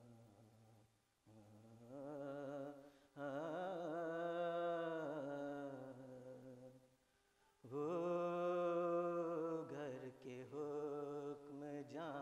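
A man's unaccompanied voice singing long, wavering melodic phrases in the chanted style of an Urdu devotional poem (manqabat). He pauses briefly about a second in and again about seven seconds in.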